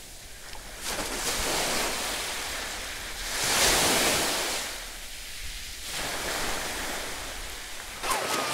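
Shallow sea water splashing and washing in rising and falling surges, loudest about halfway through: a swimmer's strokes, then feet wading and running through the shallows.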